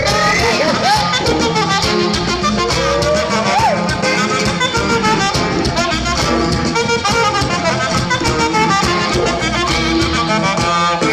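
Norteño sax band playing, with saxophone lead over a steady bass and drum beat. There are sliding notes near the start and again around three seconds in.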